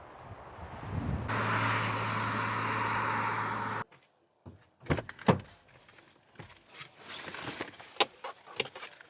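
Car running with a steady low hum and road noise for a couple of seconds, cutting off abruptly; then scattered sharp knocks and clicks.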